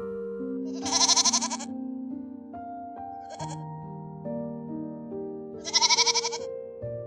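Three quavering bleats: a long one, a short one, then another long one. They sound over background music of slow, sustained notes.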